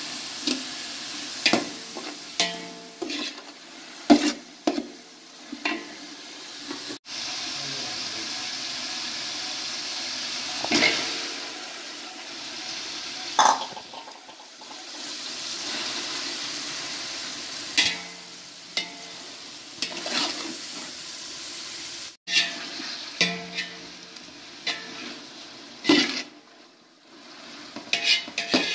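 Onions and chicken pieces sizzling in hot oil in a large metal cooking pot, with a metal spoon scraping and clicking against the pot as it stirs.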